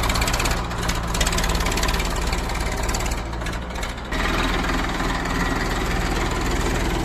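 Diesel engine of a JCB 3DX backhoe loader running steadily; its sound dips a little and steps back up about four seconds in.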